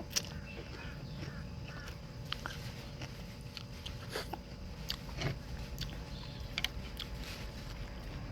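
A person eating noodle soup: chewing, with scattered sharp clicks of a spoon and chopsticks against the bowl over a steady low hum.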